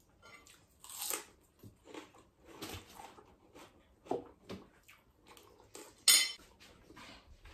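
Close-up eating sounds: chewing, with fingers working rice on a plate. A loud crunch comes about six seconds in as a raw cucumber slice is bitten.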